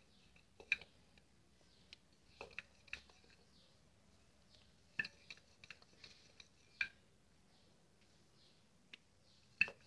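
Sparse light taps and clicks of a rolling pin and fingers on a stone counter as a thin atta-dough momo wrapper is rolled out and its edges pressed thin.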